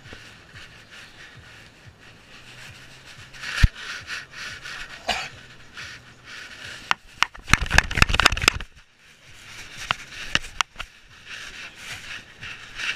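Rubbing and rustling from a GoPro strapped to a dog as it moves about in grass, with scattered knocks on the camera housing and a burst of clattering scrapes about seven seconds in.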